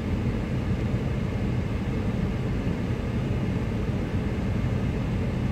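Steady low rumble of a car's engine and tyres heard from inside the cabin while driving slowly on a snow-covered street.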